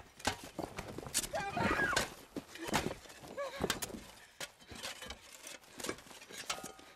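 A woman's short cries over repeated sharp knocks and cracks of earth and roots as she scrabbles at a hollow under a tree.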